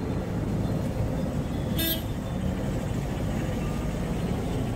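Steady street-traffic rumble with one short vehicle horn toot about two seconds in.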